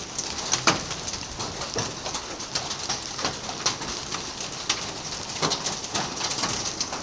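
Hail and heavy rain coming down on pavement and hard surfaces: a steady hiss of rain with irregular sharp clicks and knocks of hailstones striking, several a second. The strongest strike comes about a second in.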